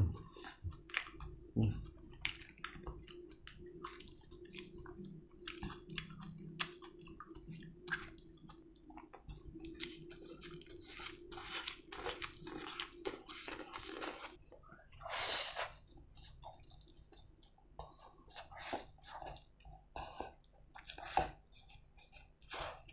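Close, wet chewing and crunching of a mouthful of leafy greens, with many small mouth clicks and crunches, and a brief louder hiss about fifteen seconds in.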